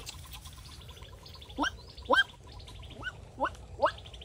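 A bird calling in a series of quick, steeply rising notes, five of them starting about a second and a half in, roughly two a second. A faint rapid high trill runs behind them.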